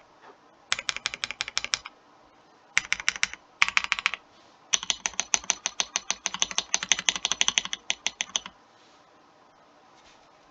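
Typing on a Higround Base 65 mechanical keyboard fitted with its stock White Flame switches, a sound test of how the switches sound. Quick runs of keystroke clacks come in several bursts, the longest lasting nearly four seconds, and then the typing stops.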